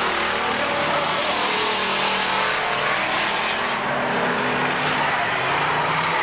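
Several stock car engines running hard together as the cars race, their pitches shifting and overlapping.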